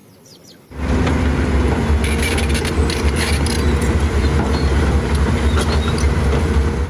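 A motor-driven cleaning machine running steadily with a low hum and a rushing hiss. It switches on abruptly about a second in.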